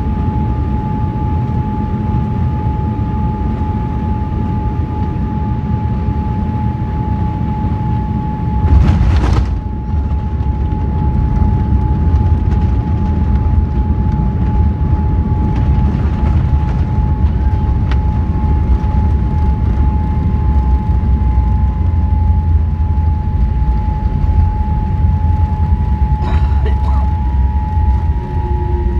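Jet airliner landing, heard from inside the cabin: a steady engine drone with a high hum over a low rumble. About nine seconds in comes a sharp thump as the wheels touch down, followed by a heavier rumble as the plane rolls down the runway.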